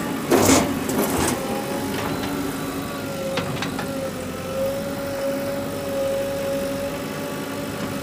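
JCB 3DX backhoe loader's diesel engine running steadily while the front bucket digs into loose earth, with a loud scraping crunch about half a second in and a few lighter knocks and clicks after it.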